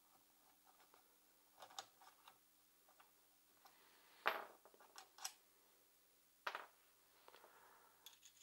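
Faint, scattered metal clicks and ticks of a T-handle Allen key working on the pull-start cover bolts of a small two-stroke engine and being handled, the sharpest click about halfway through.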